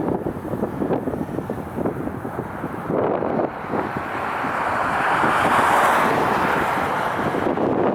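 Strong wind buffeting the microphone, with a jet airliner's roar swelling over it and loudest a little past the middle.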